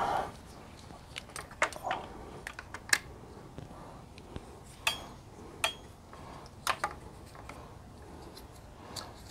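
Metal parts being handled: irregular sharp clinks and taps, about a dozen, some with a brief metallic ring.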